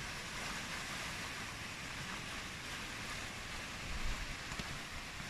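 Steady rush of lake waves washing on the shore, with wind buffeting the microphone in low gusts about four seconds in.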